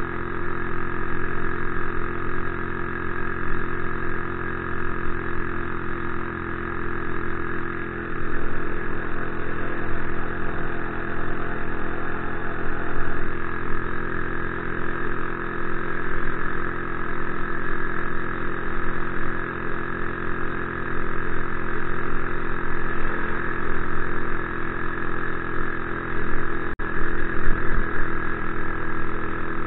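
Small engine of a motorized bicycle running at a steady cruising speed, one even pitched drone with a light click near the end.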